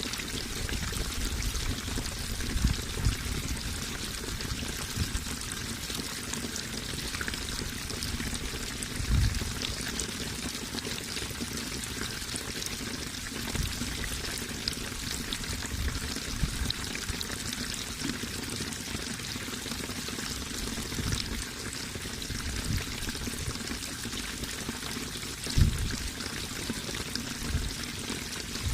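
Running water rushing steadily, a stream or small cascade, with a few brief low thumps of water.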